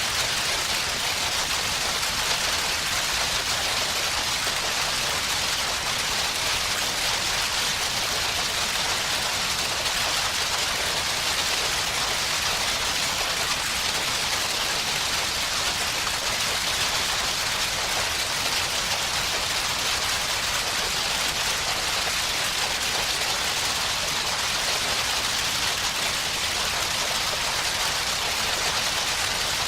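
Designed sci-fi electric field sound effect: a dense, steady hiss of crackling particles like a waterfall or heavy rain.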